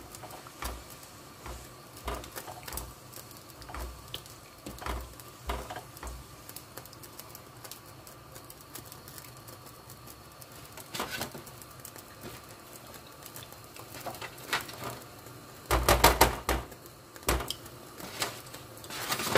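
A spoon stirring thick tomato-and-mince sauce in a pot, with scattered light knocks and taps against the pot's sides, and a louder run of knocks near the end.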